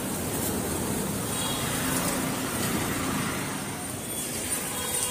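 Steady road-traffic noise with a low engine hum.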